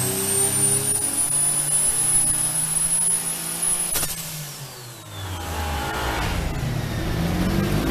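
Single-turbo Nissan VQ35DE 3.5-litre V6 at high revs on a dyno pull, with a steady high whine over the engine note. About four seconds in, a sharp crack comes as the throttle closes. The whine sinks away and the engine drops off, then it picks up again and wavers near the end.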